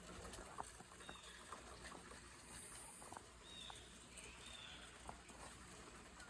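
Near silence: faint outdoor ambience with a low steady hum, a few soft scattered ticks and a handful of faint, short, high chirps.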